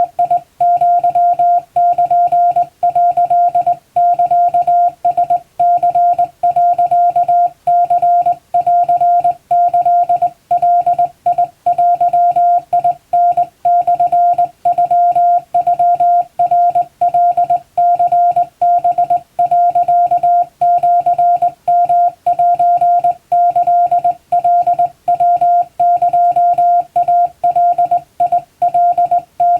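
Japanese (Wabun) Morse code sent on a hand-operated telegraph key: a single steady CW tone keyed on and off in rapid dots and dashes, with short pauses between groups.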